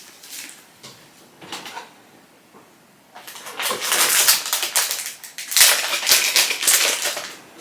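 Protective wrapping being pulled and crinkled off a handbag's metal chain strap, in irregular bursts of rustling, with short ones at first and longer, louder ones in the second half.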